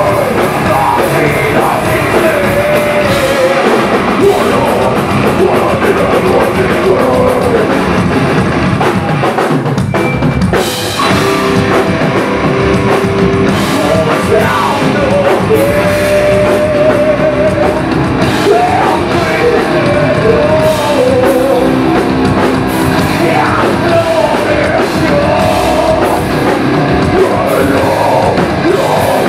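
Heavy metal band playing live: distorted electric guitars, bass and a pounding drum kit under harsh, screamed vocals, with a brief break about ten seconds in.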